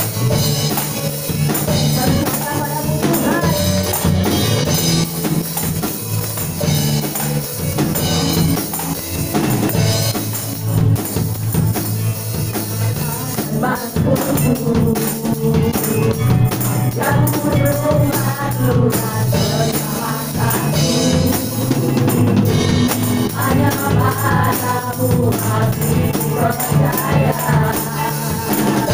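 A live church praise band playing a worship song: women singing into microphones over keyboard and bass guitar, with tambourines shaken along to a steady beat.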